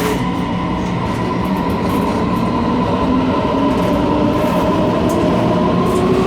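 Taiwan Railways local (區間車) electric multiple unit heard from the gangway connection between two cars while running: a steady loud rumble and rush of wheels and track, with faint whining tones that slowly shift in pitch.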